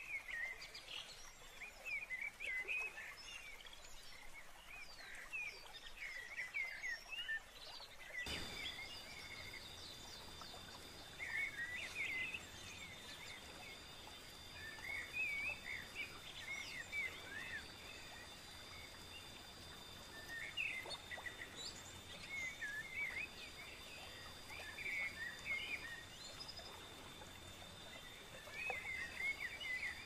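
Small birds chirping and twittering in short bouts every few seconds. About eight seconds in, a steady high tone and a low background rush join them.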